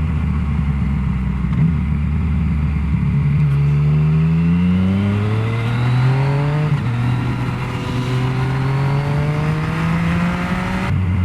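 Yamaha Tracer motorcycle engine accelerating on the road. It holds steady at first, then its pitch rises, drops briefly at a gear change about two-thirds of the way in, rises again, and falls near the end.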